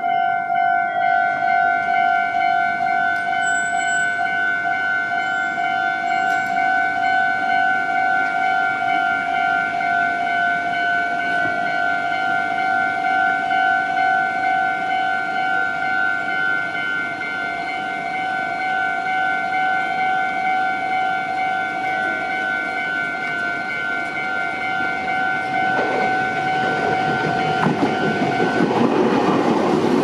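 Japanese railroad crossing's electronic warning bell ringing in a steady repeating ding. Near the end an approaching electric commuter train rumbles in over the rails, drowning out the bell, with a falling motor whine as it passes.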